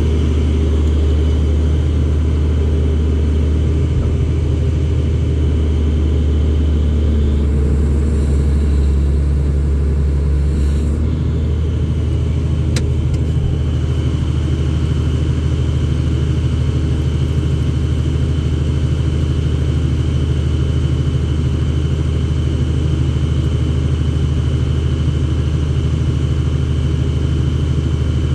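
A vehicle engine running steadily, with a faint high whine above it. The engine note changes about eleven seconds in, and a single sharp click comes shortly after.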